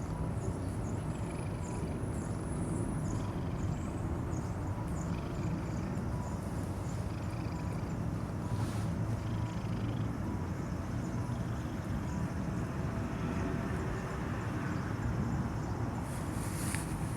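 A cat purring steadily, a dense low rumble, with faint high chirps in the first few seconds.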